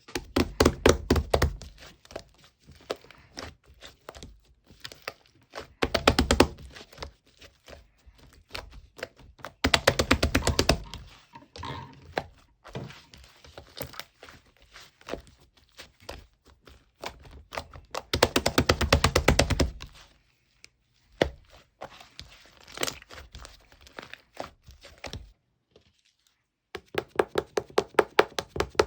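Slime being squished and pressed by hand, making several runs of rapid sticky clicks and pops, each lasting a second or two, with fainter scattered clicks between them.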